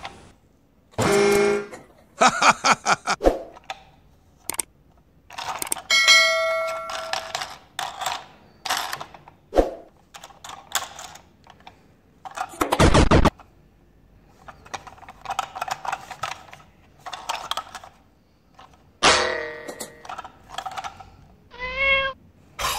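A string of short electronic sound effects (pitched tones, chimes and a falling glide) with clicks and knocks in the gaps, and one heavy thump about halfway through.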